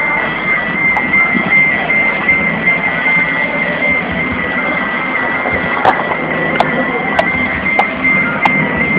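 A Fiat Tipo's car sound system plays bass-heavy rap music loud enough to overload the recording, so it comes through harsh and distorted. A steady high tone runs beneath it, and in the second half sharp ticks recur about every 0.6 s.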